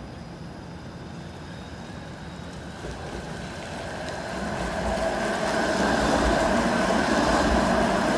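Toronto TTC Flexity Outlook low-floor streetcar approaching and passing close: steady running noise from its wheels on the rails and its traction motors. The sound builds from about three seconds in and stays loud to the end.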